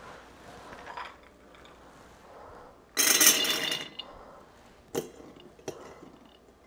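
Soaked navy beans poured into a glass quart mason jar: a rattling clatter against the glass lasting about a second, followed by two short glass clinks.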